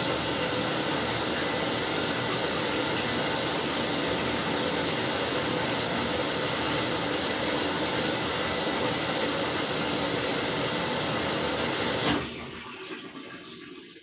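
Washing machine running, water and laundry sloshing in the drum over a steady motor noise. About twelve seconds in, a click and the noise cuts off abruptly, leaving it much quieter.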